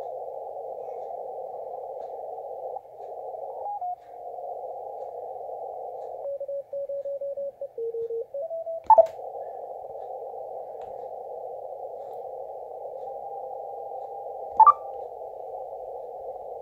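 Elecraft KX2 transceiver receiving in CW mode through its speaker: a steady narrow band of hiss as the dial is tuned across the 20-metre band, with faint Morse carriers shifting in pitch and a short run of keyed beeps in the middle. Two brief loud chirps come about nine seconds in and again near the end.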